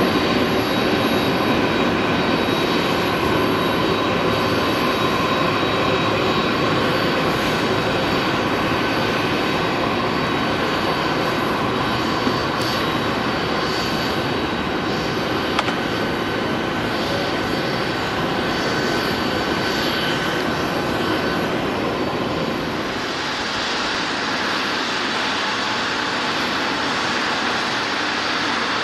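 Boeing 767 jet engines running with a steady rushing noise and a thin high whine; about 23 seconds in, the whine fades and the sound changes.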